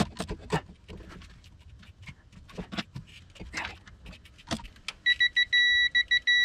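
Light metallic clicks and clinks of a torque wrench with an Allen-key-and-socket extension working a circuit-breaker terminal screw. About five seconds in, the digital torque wrench beeps in quick short pips that merge into one steady high beep, its signal that the set torque of 6 newton-metres has been reached.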